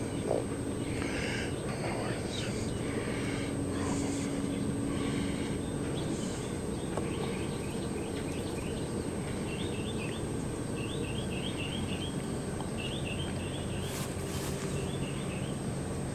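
Outdoor ambience with a bird singing short chirping phrases over and over through the second half, over a steady low background hum and a thin constant high whine. A few faint clicks and rustles come in the first few seconds.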